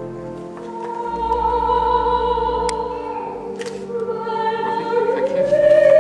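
Classical, operatic-style singing with long held notes over a steady accompaniment, stepping up to a louder, higher held note about five seconds in.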